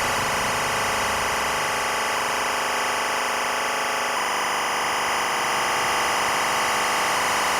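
Experimental electronic music: a dense, steady drone of layered tones and hiss, its texture shifting about four seconds in.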